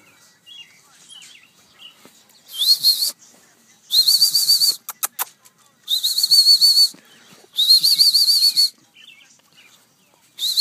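A person whistling, four long warbling whistles of about a second each, each sliding up at the start, with a fifth beginning near the end. A few short clicks fall between the second and third whistles.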